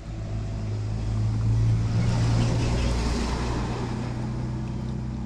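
A motor vehicle goes by, its noise swelling to a peak a couple of seconds in and then fading, over a steady low engine hum.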